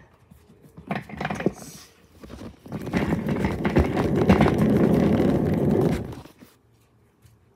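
Handling noise from a handheld phone's microphone as it is carried: soft bumps and rustles, then a loud rough rubbing rustle of hands and clothing against the mic for about three seconds that stops suddenly near the end.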